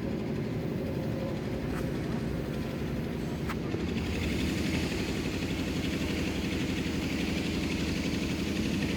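Multirotor drone's propellers buzzing steadily in flight, louder and brighter from about four seconds in.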